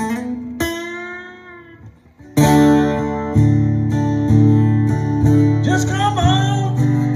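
Acoustic guitar strumming. A held note dies away over the first two seconds, then the strumming comes back in strongly at a steady beat, with a brief wordless sung phrase about six seconds in.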